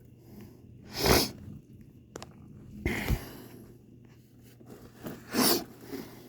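Three short, breathy sounds from a person close to the microphone, about two seconds apart.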